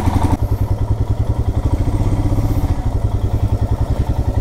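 Motorcycle engine running at low revs with a steady, rapid beat as the bike rolls slowly at walking pace.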